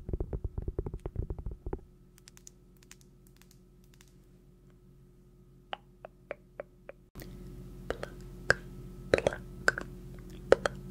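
A fast run of close-miked taps and crackles for about two seconds, then quiet with a few scattered soft clicks. About seven seconds in the background hiss jumps up suddenly, and sparse clicks and taps continue over it.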